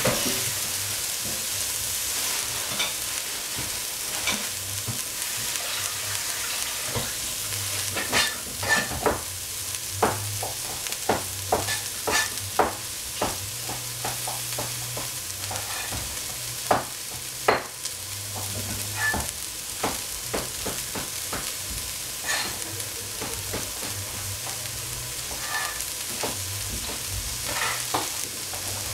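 Cauliflower and shiitake mushrooms frying in oil in a stainless steel pot: a steady sizzle with irregular sharp crackles and pops, most of them in the middle stretch.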